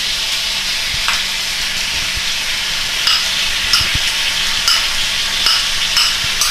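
Tuna, onion and mushrooms frying in oil in a pan with a steady sizzle. A spatula scrapes and knocks against the pan about once a second from around three seconds in as the mixture is stirred.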